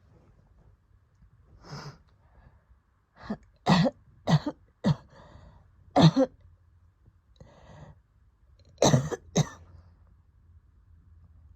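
A woman coughing during an asthma attack in short bursts: a soft cough, a run of four, then two pairs, with faint breathing between. The attack follows a bout of COVID.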